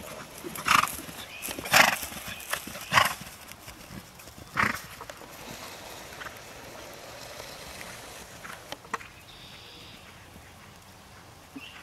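A horse blowing out hard through its nostrils four times, about a second apart, in the first five seconds, with a couple of fainter sounds later.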